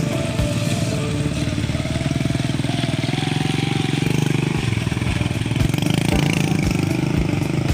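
A vehicle engine running steadily, with a fast, even low pulse.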